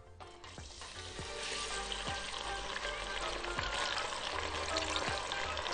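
Washed, soaked freekeh grains poured into hot ghee in a pot, sizzling as they fry. The sizzle builds over the first second or so, then holds steady.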